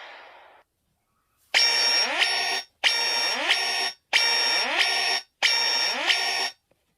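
A Nokia X3-00 electronic ringtone played through a Nokia X2-00's loudspeaker: a buzzy, alarm-like pattern repeated four times about 1.3 s apart, each burst with quick rising sweeps. Before it, the previous ringtone fades out in the first half second.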